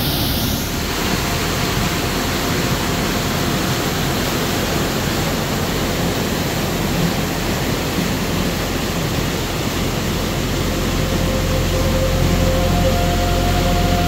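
Loud, steady rush of a waterfall plunging into a rock pool.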